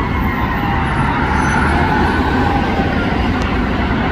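Steady rumble of dense city traffic, with an emergency siren still faintly wailing in the distance.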